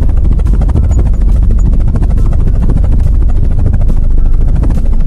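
Helicopter in flight, its rotor blades beating in a fast, even chop over a steady engine sound.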